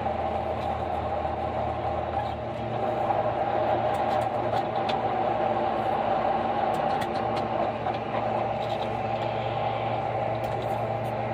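New Holland FX28 self-propelled forage harvester chopping corn, its diesel engine and chopping head running in a steady drone, together with the engine of the tractor running alongside.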